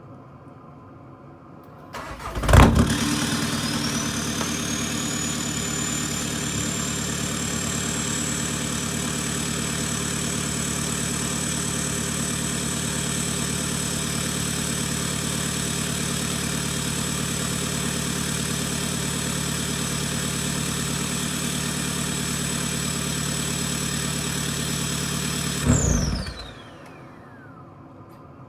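Volkswagen Mk7 TDI four-cylinder turbo-diesel, stage 3 tuned with a big turbo, cold-starting after a brief crank with a loud flare, then idling steadily. A high turbo whistle climbs over the first few seconds and holds. Near the end the engine is shut off and the whistle falls away as the turbo spins down.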